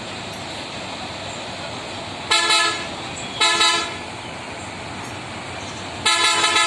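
A vehicle horn honking three times over steady background traffic noise: two short honks about a second apart, then a longer one near the end.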